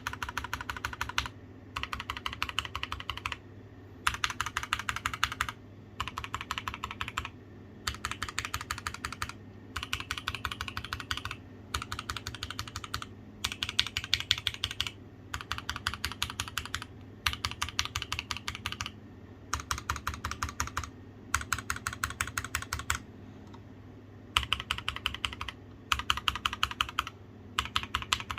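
Typing on an Akko MOD007 gasket-mount mechanical keyboard with MMD Ice Cream full-POM switches. Fast keystrokes come in bursts of about a second, one word at a time, with short pauses between them.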